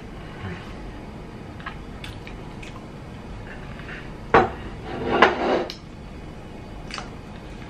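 A plate knocks sharply against a hard surface about four seconds in, followed by a short clattering rattle as dishes are handled.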